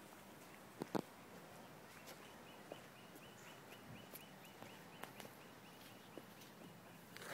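Near silence: quiet backyard ambience, with two soft knocks about a second in and a faint, high chirp repeating about four times a second from about two seconds in until near the end.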